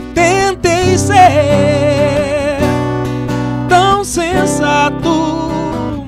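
Acoustic guitar being strummed in steady chords while a man sings long, wavering held notes over it.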